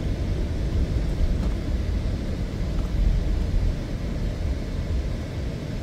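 Car driving along a street: a steady low rumble of road and engine noise.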